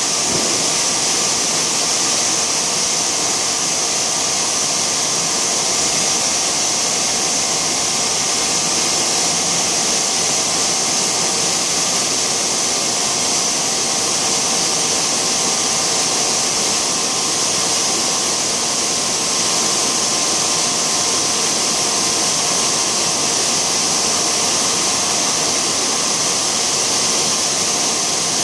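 Large extrusion blow moulding machine running: a loud, steady hiss with a few faint, even hum tones beneath it, unchanging.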